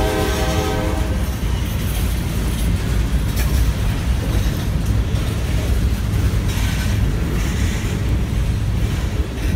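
Norfolk Southern freight train going by. Its locomotive horn chord cuts off about a second in, leaving a steady low rumble of the train rolling past.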